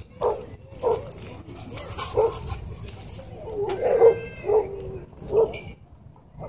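Large dogs barking during rough play, a short bark every half second to a second, with one longer, higher whining cry about four seconds in.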